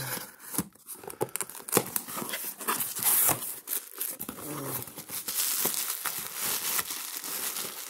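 Cardboard shipping box being opened by hand, flaps and tape scraping and tearing, then the bubble wrap packed inside crinkling and rustling under a hand, with scattered sharp clicks and crackles.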